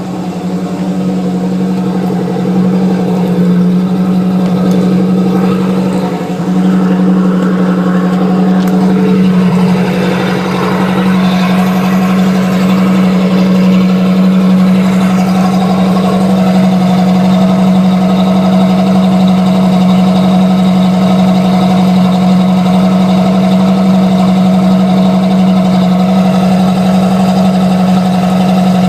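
Boat motor running steadily in forward gear at light throttle, a constant low drone.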